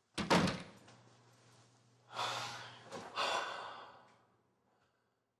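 A door shutting with a sharp thunk about a quarter-second in, followed by two long, heavy breaths about two and three seconds in.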